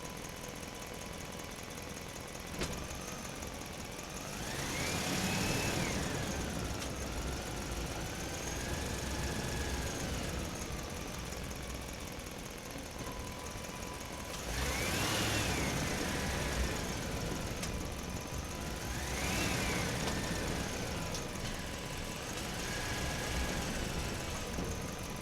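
Truck engine running on the road, a low steady rumble with a whine that rises and falls about four times as the engine revs up and eases off.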